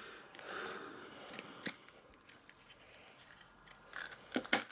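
A yellow plastic Kinder Surprise toy capsule being bitten and pried open, giving faint scrapes and sharp little clicks, with a few clicks close together near the end.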